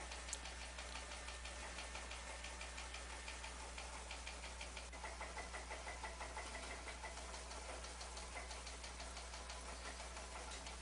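Quiet room tone: a low steady hum with faint, evenly spaced ticking.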